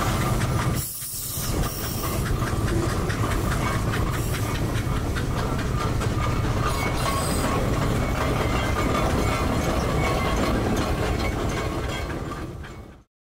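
Steam roller on the move: its steam engine hissing and chuffing, with the clatter of its gearing and chain steering, fading out near the end.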